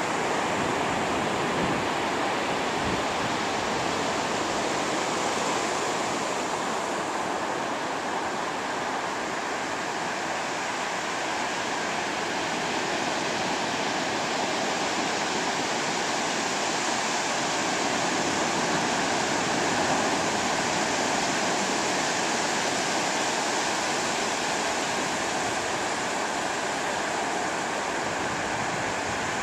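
Ocean surf breaking and washing up a sandy beach: a steady rush of water noise.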